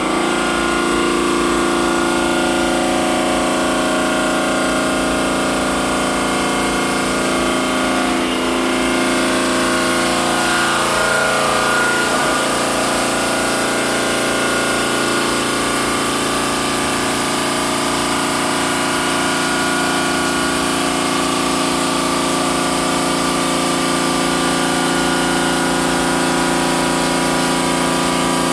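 Park Industries Saber 5-axis CNC bridge saw's diamond blade cutting a stone countertop slab: a loud, steady whine of several tones that starts abruptly. The tones waver about 8 to 12 seconds in, then settle.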